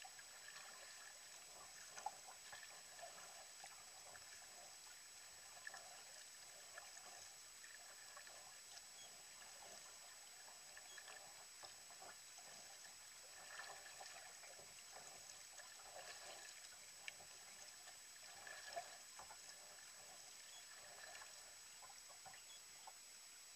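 Faint splashing and dripping of a double-bladed kayak paddle dipping into calm sea, stroke after stroke, with water trickling off the blades.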